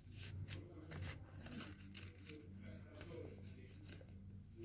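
Faint rustling and soft clicks of paper being handled, over a low steady hum.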